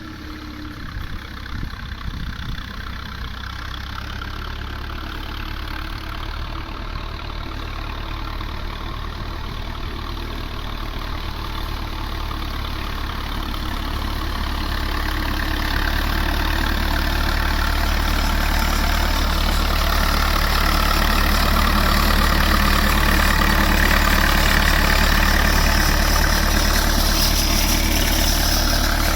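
Standard Fordson tractor engine running steadily, growing louder through the middle and staying loud to the end.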